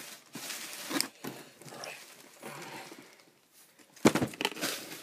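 Plastic wrapping rustling and crinkling as it is pulled off a cardboard box, with a few clicks. Loud knocks and bumps of handling about four seconds in.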